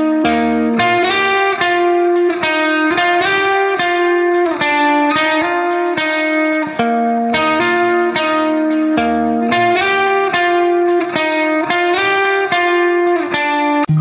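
Instrumental background music: a melody of plucked notes, played evenly at about three notes a second.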